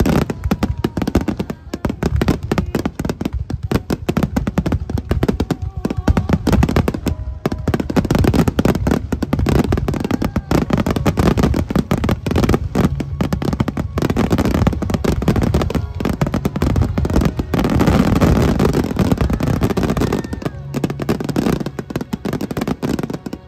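Large aerial fireworks display going off in a loud, almost unbroken barrage of bangs and crackles, at its thickest about three quarters of the way through.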